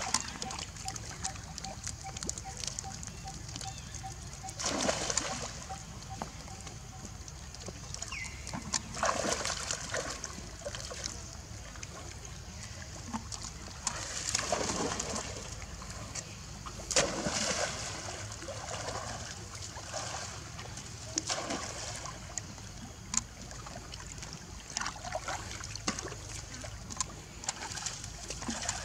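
Monkeys swimming and scrambling at a pool's edge, splashing the water: irregular splashes and sloshes every few seconds.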